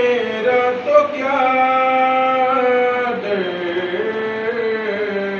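A man's solo voice singing a naat, an Urdu devotional hymn in praise of the Prophet Muhammad, unaccompanied. He holds long notes that slide between pitches, with a drop in pitch about three seconds in.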